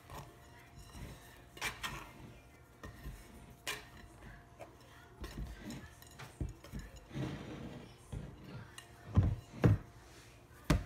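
Hand scraper scraping and clinking against a ceramic mixing bowl as risen sourdough dough is worked loose and lifted out. Two or three heavier thumps come near the end.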